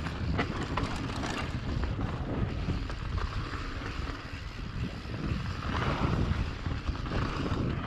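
Wind buffeting the microphone of a GoPro on a mountain bike riding down a dirt trail, with tyre rumble and a few short rattles and clicks.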